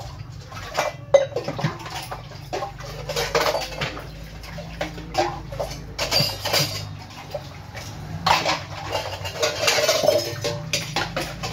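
Stainless steel pots, bowls and plates being washed by hand: irregular clinks and knocks of metal on metal, with stretches of scrubbing and scraping, the sharpest clank about a second in.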